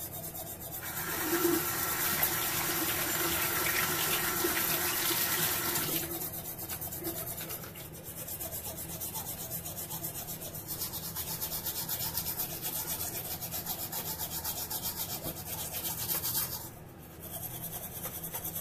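Manual toothbrush scrubbing teeth in quick strokes, with a loud rush of running water for about five seconds, starting about a second in. The brushing pauses briefly near the end.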